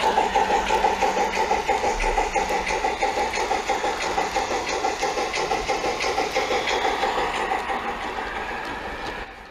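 G-scale model steam locomotive running along garden track: a steady hum with rapid, regular clicking, fading out near the end.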